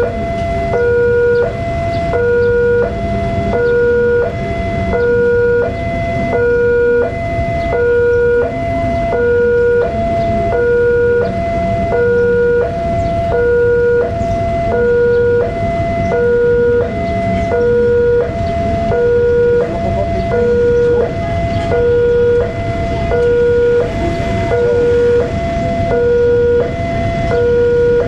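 Railway level-crossing warning alarm sounding a steady two-tone signal, a lower and a higher tone alternating about every three-quarters of a second, while the barrier is down for an approaching train.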